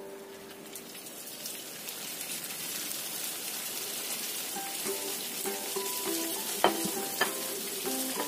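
Hot cooking oil sizzling as wonton-skin-wrapped chicken rolls are deep-fried in a small pan. The sizzle builds from faint to a steady hiss over the first few seconds. Two sharp taps come a little over half a second apart, late on.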